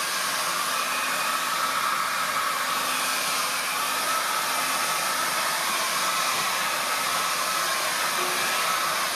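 Handheld hair dryer blowing steadily, a rush of air with a steady whine in it. It is drying a freshly ground stone so that the scratch pattern can be checked for deep scratches.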